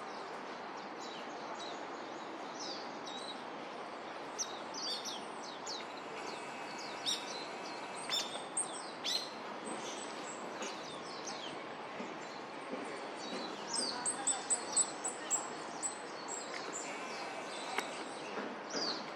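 Small woodland songbirds giving many short, high chirps and call notes, thickest a little past the middle, over a steady background hiss.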